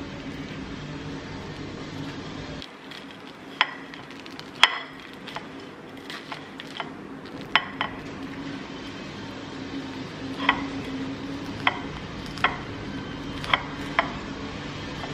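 Metal spoon and fork clinking and scraping against a ceramic plate as avocado is scooped onto a muffin and mashed flat, with several sharp ringing taps spread through, over a steady low hum.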